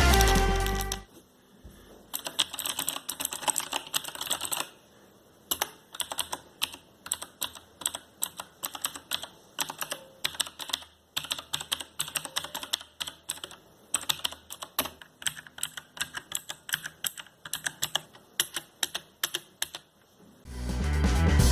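Typing on a HyperX Alloy FPS Pro mechanical keyboard with Cherry MX Blue switches: fast, clicky keystrokes in bursts, with a short pause about five seconds in. Background music fades out in the first second and comes back near the end.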